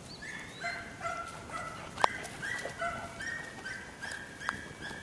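A dog whining over and over in short, high-pitched notes, about two a second, with a sharp click about two seconds in.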